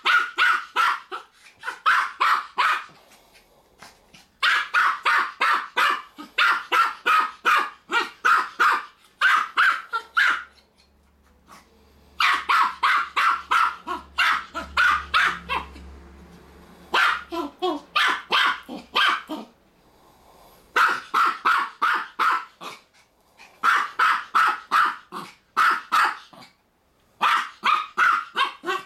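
Small keeshond (German spitz) barking at a hedgehog. The barks are high-pitched and rapid, a few a second, coming in bouts of several seconds with short pauses between them.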